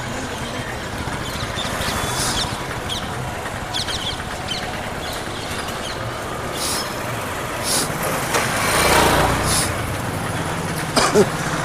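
Road traffic going by, with a vehicle passing louder about nine seconds in.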